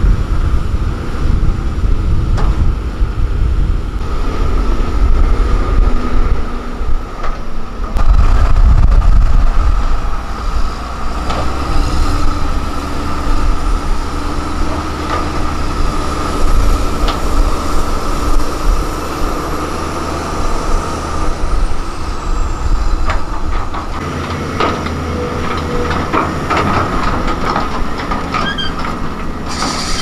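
Heavy diesel road-construction machinery working, mainly motor graders: a low engine rumble with a steady high-pitched whine and scattered clanks. The sound changes abruptly twice, about 8 and 24 seconds in.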